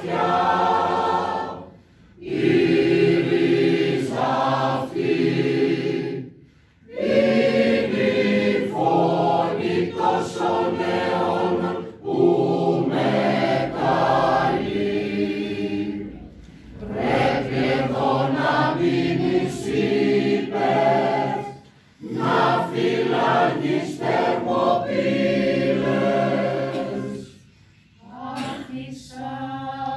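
Mixed choir of men's and women's voices singing unaccompanied in sustained chords, in phrases broken by short pauses about every four to six seconds.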